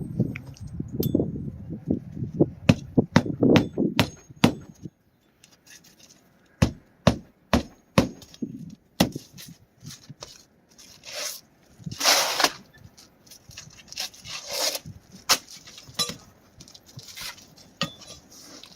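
Hand tools working on asphalt roof shingles during a repair: a quick run of sharp knocks, then scattered knocks and a couple of short scraping rubs near the middle.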